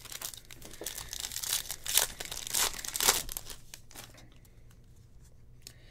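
Crinkling and tearing of a foil trading-card pack wrapper: a run of crackly rustling for about three and a half seconds with a couple of sharp snaps, then fainter handling.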